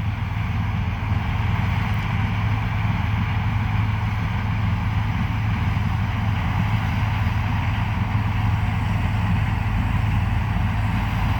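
Combine harvester running steadily at harvest, an even low engine hum with the threshing machinery's drone above it.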